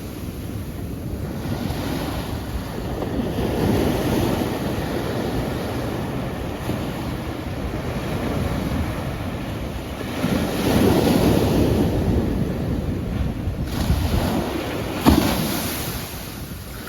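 Ocean waves breaking and washing on a shore, swelling and receding, with louder surges twice and a brief sharper crash near the end.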